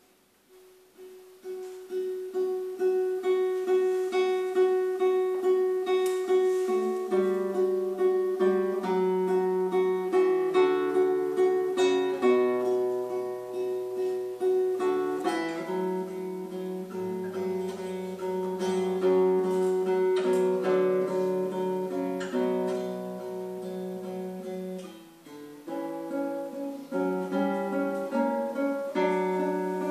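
Solo classical guitar fingerpicked live: about half a second in, a rapidly repeated single note begins, with lower notes and a moving bass joining beneath it after several seconds. The playing eases into a brief lull about 25 seconds in, then picks up again.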